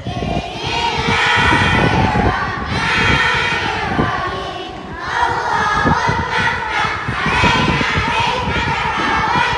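A large group of young children's voices together, loud and continuous, dipping briefly about five seconds in.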